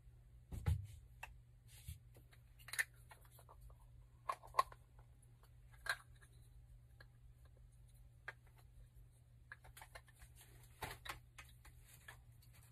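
Scattered small clicks and knocks of hands working plastic and brass pipe fittings, with a dull thump about half a second in, under a faint steady low hum.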